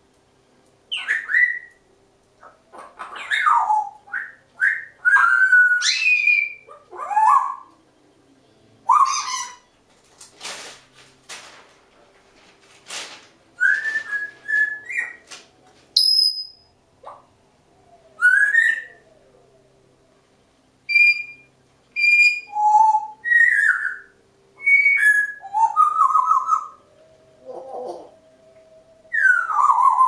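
Two Congo African grey parrots making their relaxed bedtime 'winding-down' noises: a string of short whistles, squeaks and chirps, many gliding up or down in pitch, with a few harsh rasping bursts about halfway through.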